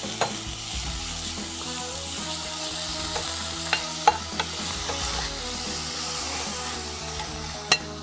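Fresh mint and coriander leaves sautéing in a few drops of oil in a coated kadai, stirred with a steel ladle: a steady soft sizzle with a few sharp clicks of the ladle against the pan.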